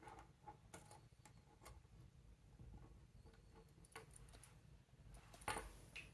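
Faint, scattered small clicks and scrapes of a watchmaker's small screwdriver working at the tabs of a metal expansion watch bracelet, with one slightly louder click near the end.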